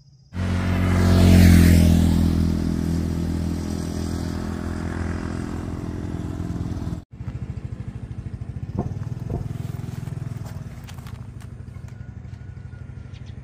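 Motorbike engine running, starting abruptly and loudest in the first couple of seconds with a rush of noise over it. It breaks off about seven seconds in, then runs on steadily.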